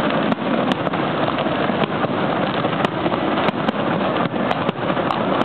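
Fireworks show: a dense, unbroken run of bangs and crackles, with many sharp reports on top of a steady wash of noise.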